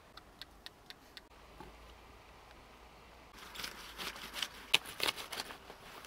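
A knife cutting through a bundle of fresh taro stalks, a rapid run of sharp cracks and snaps starting about halfway through. Before that there are only a few faint light clicks.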